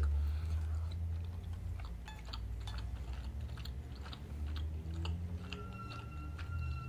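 A person chewing boiled beef pelmeni close to the microphone, with soft wet mouth clicks, over a steady low hum. A faint thin steady whine comes in at about five and a half seconds in.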